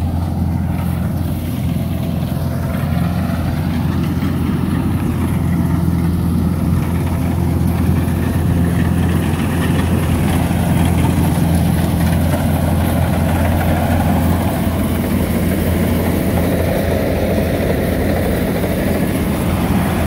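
Rice combine harvester running close by, its diesel engine giving a steady low drone as the header cuts through the rice. It grows a little louder over the first few seconds, then holds.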